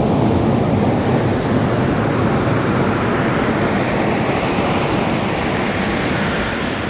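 Ocean surf breaking and washing up the beach, a steady rushing wash of waves.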